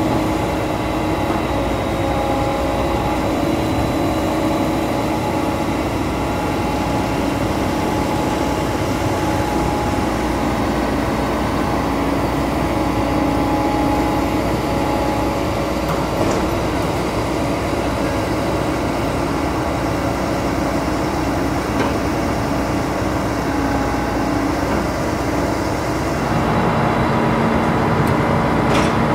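Heavy military truck's diesel engine running steadily while it powers the hydraulic loader crane. Near the end the engine note changes and grows a little louder as the crane lifts a bridge segment.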